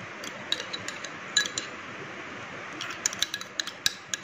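Light clinks and taps of a small metal container as cashew paste is scraped and shaken out of it into a plastic bowl. The clicks are scattered and come in two clusters, a brief one about half a second in and a denser one from about three seconds on, some of them ringing briefly.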